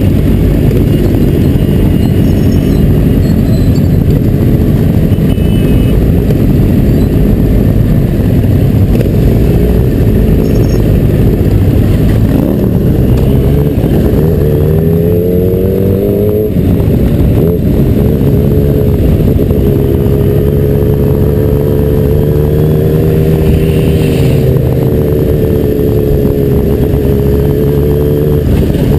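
Yamaha XJ motorcycle engine heard from the rider's helmet, under heavy wind noise and the rumble of other bikes nearby. The engine pitch climbs as it accelerates about halfway through, drops suddenly at an upshift, then holds a steady cruising note.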